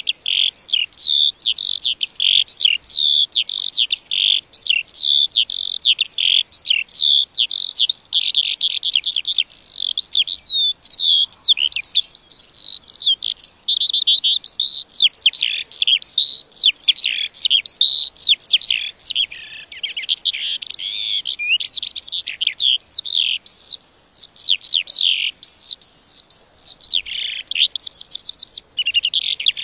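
Lark singing a long, unbroken song of rapid, varied chirps, trills and whistled glides, high-pitched and loud.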